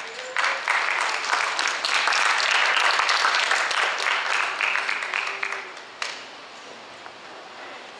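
Crowd applause that begins right away, swells through the middle and dies away about six seconds in.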